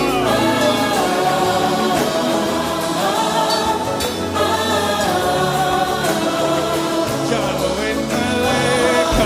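Gospel music: a choir singing over instrumental backing.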